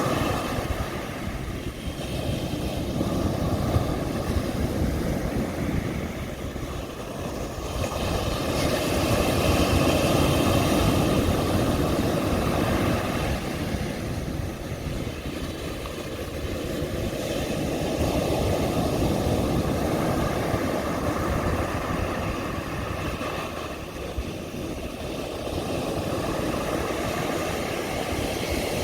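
Sea waves breaking on a beach: a continuous rush of surf that swells and eases about every nine seconds.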